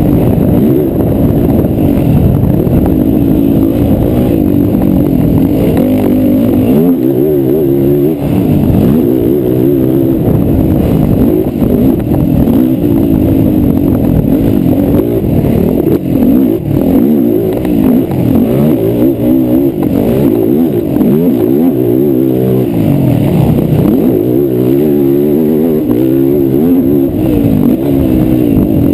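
Race ATV engines revving hard on a motocross track, the pitch climbing and dropping over and over as the throttle opens and closes.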